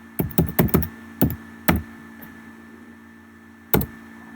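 Sharp clicks from a laptop's keys and trackpad being pressed: a quick run of about six in the first second and a half or so, then one more near the end.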